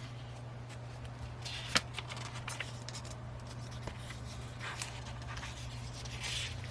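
Pages of a Bible being turned by hand: soft paper rustles a few times, with a sharp tap about two seconds in. A steady low hum runs underneath.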